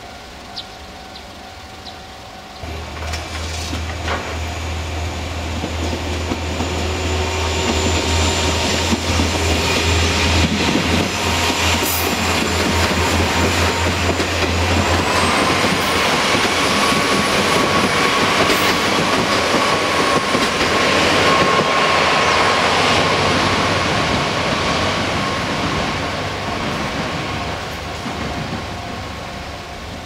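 A train running over a Japanese level crossing, building up a few seconds in, loudest past the middle and fading near the end, with the crossing's warning bell ringing steadily throughout.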